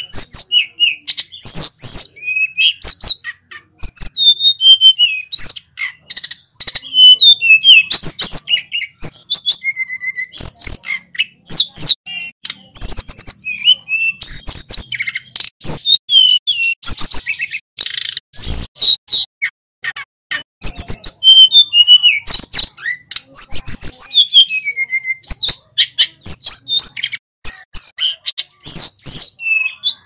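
Male hill blue flycatcher (sulingan gunung) singing loud and without a break: a fast run of high, sweet whistled phrases full of notes that slide up and down, with only short pauses between them.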